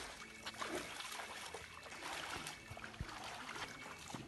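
Pool water splashing and trickling: an even wash of water sound with many small, irregular splashes.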